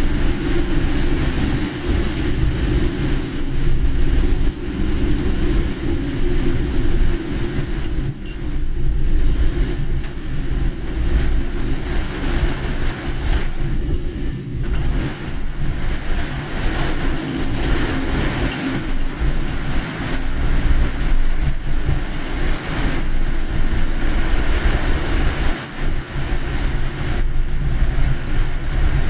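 Car driving on a rain-soaked road in heavy rain: a continuous low rumble of engine and tyres with the hiss of rain and spray over it.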